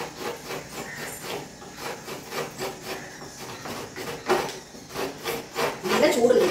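Half a coconut being scraped on a hand coconut grater in rhythmic rasping strokes, about three a second, louder near the end.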